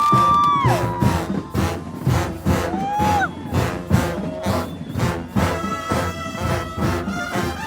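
Mexican brass banda playing live: an even drum beat of about two strokes a second with brass, a few held and sliding notes in the first seconds, then full brass chords building from about five seconds in.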